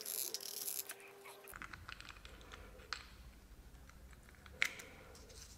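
Faint handling noises from steel transmission parts, the planetary gear set of a ZF 6HP26 A-clutch drum, being fitted together by hand: a soft rustle at first, then scattered small metal clicks, with a sharper click about three seconds in and another near the end.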